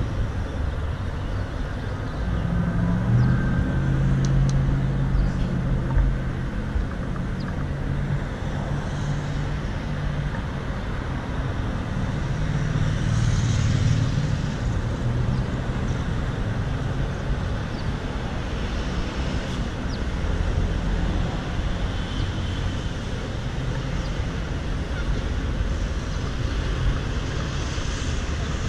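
City street traffic running past, a continuous hum of car engines and tyres, with louder passing engines a few seconds in and again about halfway through.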